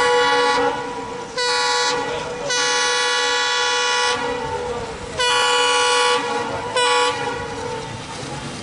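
ALCO WDG3A diesel locomotive horn sounding a string of blasts: one ending just into the clip, a short one, a long one of about a second and a half, then two shorter ones. A low diesel rumble runs underneath and carries on alone after the last blast.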